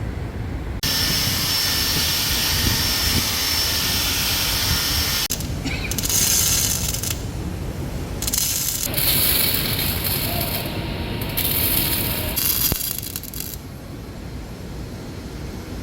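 A loud hiss in a series of bursts, each starting and stopping abruptly, over a steady low rumble.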